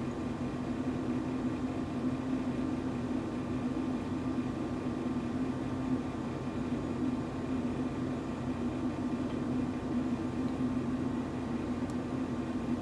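Steady low hum with a faint hiss, room tone from an air conditioner or similar machine; the thick silicone rubber being poured into the glass jar makes no distinct sound.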